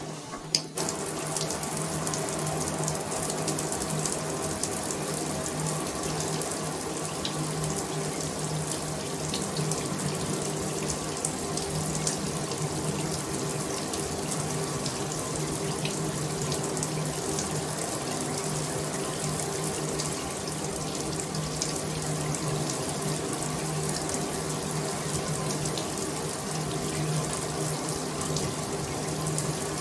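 Bathroom shower running steadily, water spraying from the showerhead, with a low steady hum under the hiss. A single sharp click just after the water comes on.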